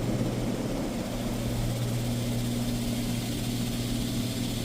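Mark VII Aquajet GT-300 in-bay automatic car wash running mid-cycle: a steady machine hum from its pump under an even hiss of water spray.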